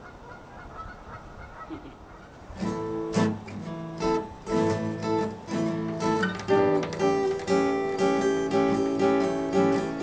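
Steel-string acoustic guitar starting up about two and a half seconds in, its chords ringing in a steady rhythm.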